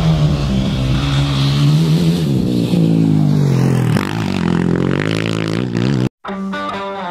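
Dirt bike engine running and revving, its pitch sliding down and then climbing again, before it cuts off abruptly about six seconds in. Electric guitar music starts a moment later.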